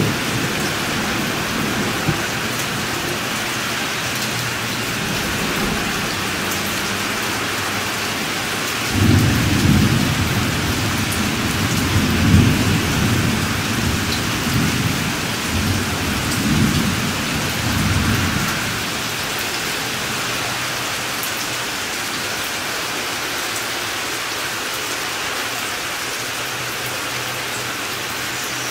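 Steady rain, with a long roll of thunder starting about nine seconds in that swells several times and dies away after about ten seconds.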